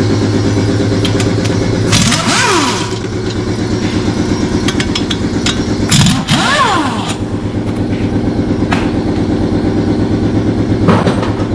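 Piston air compressor running steadily with a pulsing beat. Twice, about two and six seconds in, an air impact wrench runs for about a second, its pitch rising and then falling, as it spins out the brake caliper bolts.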